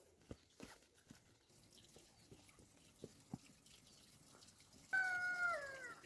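A few soft knocks and clicks, then about five seconds in a single loud, drawn-out chicken call lasting about a second that drops in pitch at the end.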